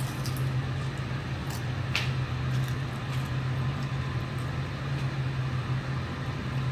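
Steady low hum, like a fan or appliance running, with a single faint click about two seconds in.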